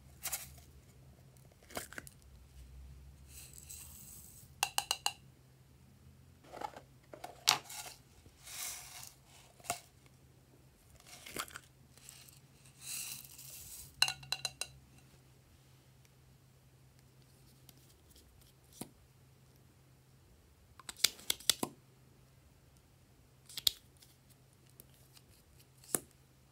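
Scattered clicks and taps of small plastic containers and lids being handled, with a few short rustling stretches as sequins and glitter are sprinkled onto slime in a glass dish.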